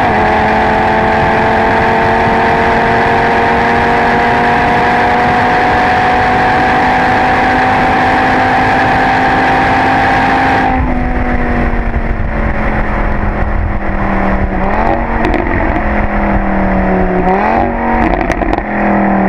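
Audi RS3's turbocharged five-cylinder engine at full throttle from inside the cabin, starting with an upshift into fifth and then slowly climbing in pitch under heavy wind and road noise. About halfway in the engine note comes off and falls as the car slows, with two short rising throttle blips on downshifts.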